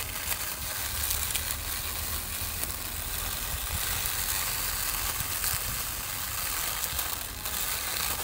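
A small handheld grass trimmer with a spinning blade head runs steadily, whirring and hissing as it cuts through long grass.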